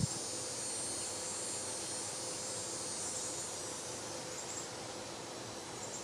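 Outdoor ambience with a steady high-pitched chorus of insects calling in the background, swelling briefly a few times.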